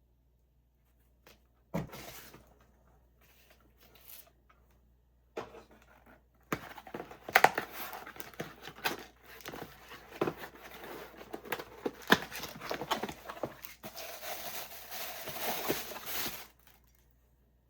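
Packaging of a fireworks parcel being handled and torn open: a knock, then a long run of crinkling, rustling and tearing with small knocks, ending in a steady tearing hiss that stops suddenly.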